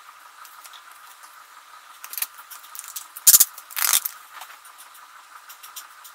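A paper booklet being opened and its pages leafed through: soft rustles, a sharp paper crack about three seconds in, then a longer rustle of pages just after.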